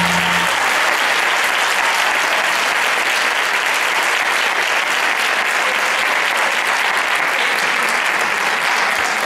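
Audience applauding steadily, a dense clapping that starts as the song's last held note cuts off about half a second in.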